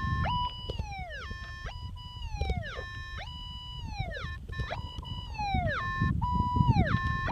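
Metal detector giving repeated target tones as the coil is swept over a buried signal: each beep holds a steady pitch, then falls away, about six times in a row.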